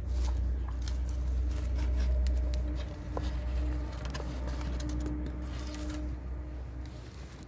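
Crackling and popping from a wood fire burning under a large lidded cast iron pot, with a low rumble that is heaviest in the first three seconds.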